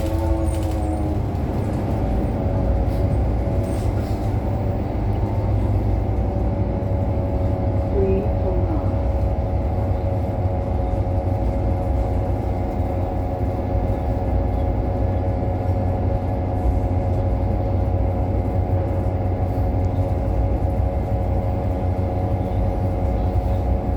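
2018 New Flyer XDE60 diesel-electric hybrid articulated bus running: a low rumble under a steady hum of several tones that shift in pitch over the first few seconds, then hold level. This hum is the unusual sound that sets this bus apart from others of its model. A brief chirp comes about eight seconds in.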